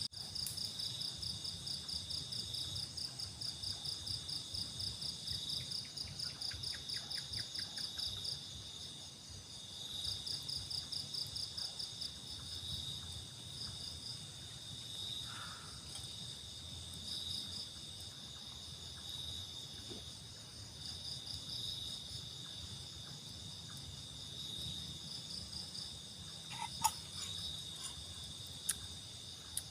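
Night insects chirping in a steady chorus of rapid, pulsing trills, with a couple of brief faint clicks near the end.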